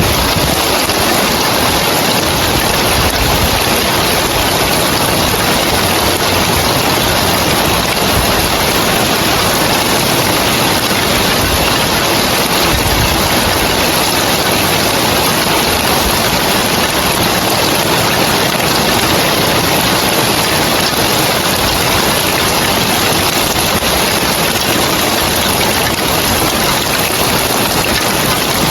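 Rain falling on roof tiles: a loud, steady, dense hiss that does not let up.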